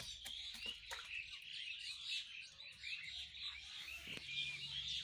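Many small birds chirping and twittering at once, with a few faint knocks in the first second and again about four seconds in.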